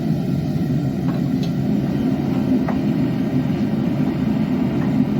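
A blacksmith's forge running: a steady, even rushing noise with no breaks, with a few faint clicks over it.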